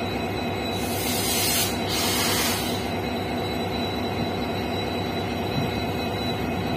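EMD 16-cylinder two-stroke diesel engine of a WDP4D locomotive running hard as it hauls a loaded freight train, a steady low drone. A loud hiss starts about a second in and lasts about two seconds.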